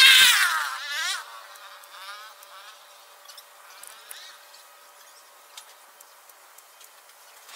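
A flying insect buzzing close by, its pitch swooping up and down as it passes. The buzz is loudest in the first second and fades out after about a second and a half, leaving only faint ticks.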